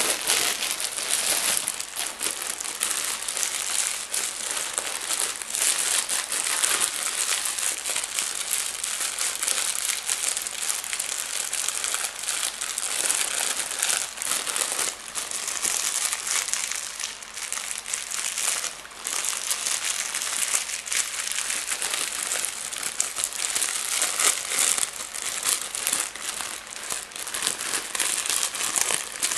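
Plastic being crinkled and crumpled: a continuous, dense crackling with a short lull about two-thirds of the way through.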